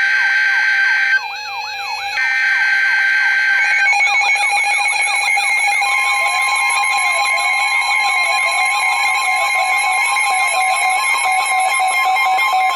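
Electronic alert tones and a fast-cycling wailing siren layered together, like a weather-radio and emergency alarm medley. Several steady tones sound at once under a siren sweeping up and down about three times a second. More tones join about two, four and six seconds in, among them a steady tone near 1 kHz and a slower warbling sweep.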